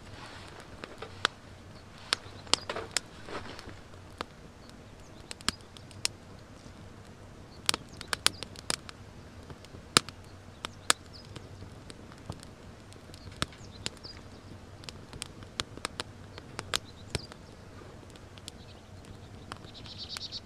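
Wood fire crackling in a small fire pan, with sharp pops at irregular intervals and a cluster of louder pops about halfway through.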